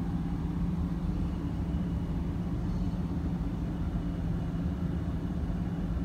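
Steady low machine hum with a constant low tone, unchanging throughout.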